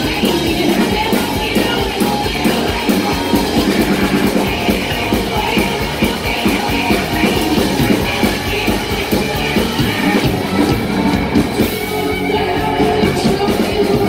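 Live rock band playing loud: electric guitar, bass guitar and drum kit with a steady beat, and a singer singing into the microphone.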